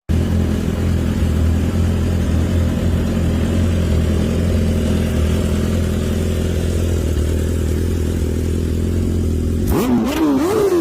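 Sports motorbike with an aftermarket racing exhaust idling with a steady, deep, bassy note. Near the end it is revved in quick blips, the pitch rising and falling about once a second, with sharp pops.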